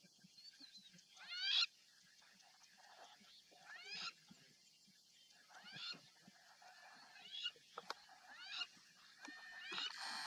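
Lion cubs mewing: short, high, rising calls, repeated every second or two.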